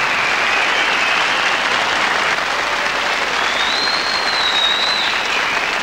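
Audience applauding steadily, with a high sustained tone over the clapping for a moment near the middle.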